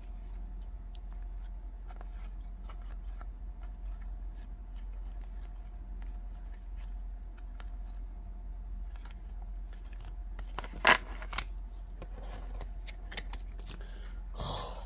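2024 Topps Series 1 baseball cards flipped through by hand, card sliding off card: faint scattered ticks and slides, with a sharper snap about eleven seconds in. A steady low hum lies underneath.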